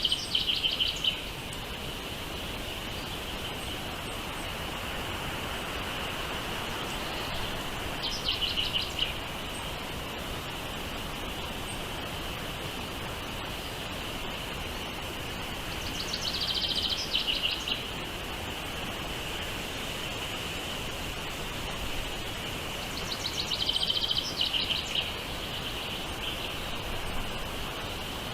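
Birds chirping in four short bursts of rapid, high repeated notes, about eight seconds apart, over a steady high-pitched drone and an even hiss.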